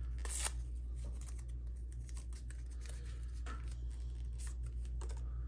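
An alcohol wipe packet being torn open and the wipe handled: irregular crinkling and small sharp clicks, the strongest about half a second in, over a steady low hum.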